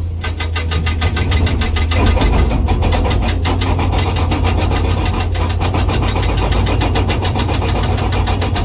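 Hydraulic rock breaker on a Komatsu PC200 excavator hammering hard rock in a rapid, even stream of blows, over the steady run of the excavator's diesel engine.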